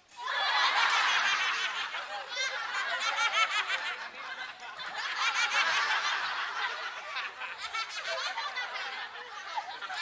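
Studio audience laughing, many voices at once, as a game-show laugh-track sound effect. It cuts in suddenly after a brief silence.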